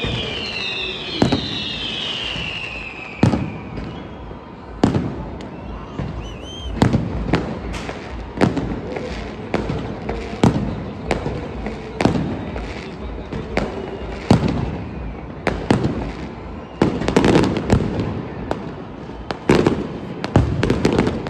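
Fireworks going off: a steady run of irregular bangs and cracks, roughly one or two a second, over a constant crackling rumble. Several falling whistles sound in the first few seconds.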